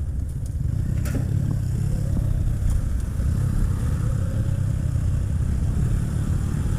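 Motorcycle engine running while riding, under a heavy low rumble of wind on the microphone. The engine note climbs slowly in pitch through the middle as the bike picks up speed.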